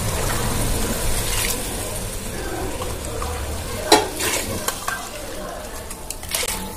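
Coconut milk poured from a steel tumbler into a pressure cooker of hot fried onions, mint and peas, splashing and sizzling as it meets the oil. A few sharp metal clinks of the tumbler and spoon against the pot, the loudest about four seconds in and more near the end.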